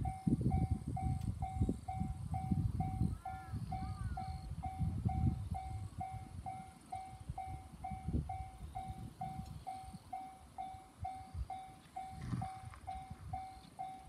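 Japanese railway level-crossing alarm ringing: a steady electronic ding of one fixed pitch, repeating evenly a little over twice a second, the warning that a train is approaching while the barriers are down. Gusts of wind rumble on the microphone underneath.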